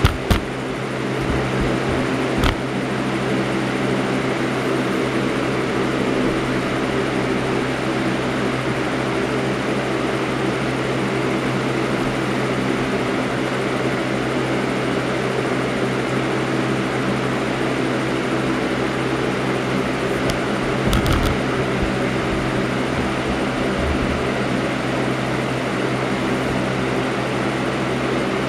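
Galaxy box fan running steadily on medium speed: an even whoosh of air over a constant motor hum. A couple of light clicks come near the start.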